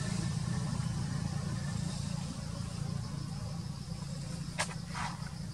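Steady low hum of a running motor, with a faint insect buzz, and two short sharp sounds near the end.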